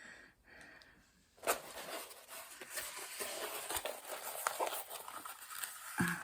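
Paper and plastic rustling and crinkling as they are handled, with light taps and clicks, starting about a second and a half in.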